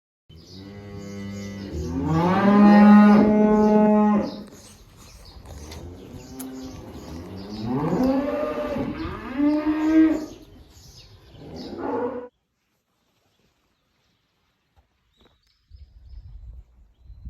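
Cow mooing: one long moo, then a few shorter moos, cutting off suddenly about twelve seconds in.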